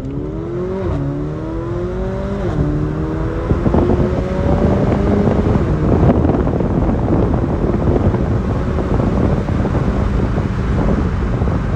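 Mercedes-AMG GLA 45's turbocharged four-cylinder engine at full throttle from a launch, heard from inside the cabin: the revs climb, drop at quick upshifts about one and two and a half seconds in, and climb again. After about five seconds the engine note fades into a steady rush of wind and road noise at speed.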